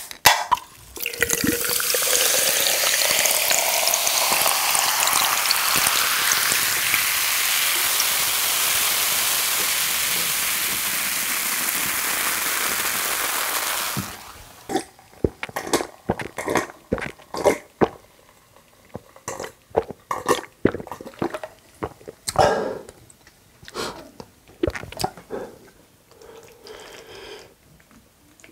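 Dark fizzy soda (cola) poured into a glass mason jar packed with ice: a loud, steady fizzing pour with a tone that rises as the jar fills, cutting off suddenly about 14 seconds in. Scattered short clicks and knocks follow.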